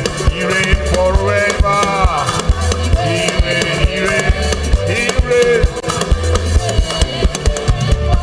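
Live gospel praise band playing: a drum kit keeps a steady beat over a bass line, with melodic lines above.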